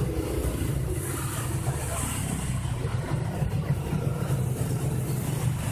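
Steady low rumbling background noise with a faint high hiss.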